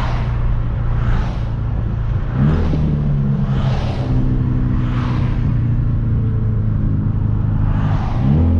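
Hyundai Veloster Turbo's turbocharged 1.6-litre four-cylinder through a catless downpipe, driving, heard from the cabin with the windows down. The engine note climbs in pitch about two and a half seconds in and again near the end, over a rushing noise that swells and fades about once a second.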